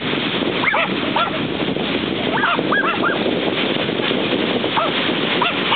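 Dogs yelping and barking excitedly at play, in several short runs of high calls, over a steady wash of surf and wind.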